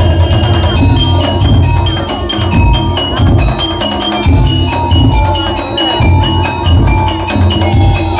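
Daul percussion ensemble playing: heavy, repeated drum beats under a quick, stepping bell-like melody.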